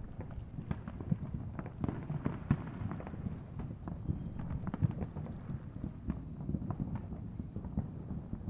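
Fireworks and firecrackers going off: a dense, irregular run of sharp pops and crackles over a continuous low rumble.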